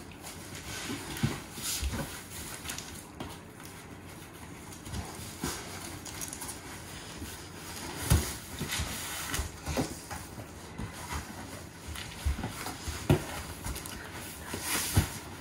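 A cardboard box being handled and pried open: irregular knocks, scrapes and rustles of cardboard and packing, with a few sharper knocks in the second half.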